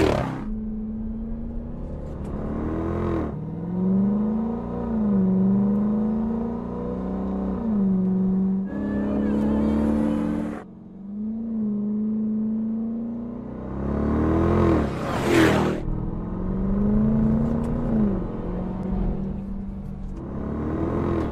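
Supercharged 6.2-litre HEMI V8 of a Dodge Durango SRT Hellcat driven hard on a track, the engine note climbing and easing off again and again as it accelerates and lifts. Several fast pass-bys sweep past, and the sound changes abruptly between shots.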